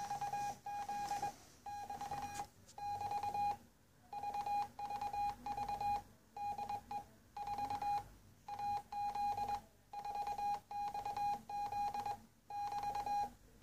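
Morse code from the 4XZ Israeli military number station received on shortwave: a single steady beep tone keyed on and off in dots and dashes at about 22 words per minute. The station is in its idling mode, repeating "VVV DE 4XZ" over and over.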